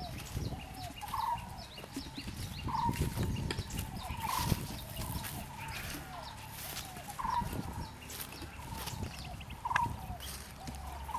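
A bird calling again and again, a short call every couple of seconds, with lighter chirps among it and a low rumble underneath.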